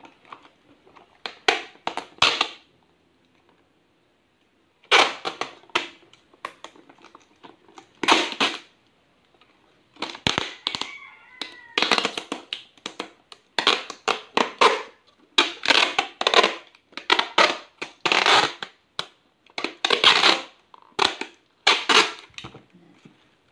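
Clear adhesive tape being pulled off its roll in many short rips, about one a second with a pause near the start, as it is stuck around a plastic container to seal it.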